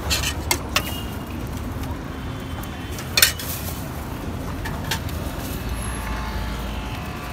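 Busy street-food stall ambience: a steady low traffic hum, with a few sharp clinks and knocks of steel utensils near the start and one louder knock about three seconds in.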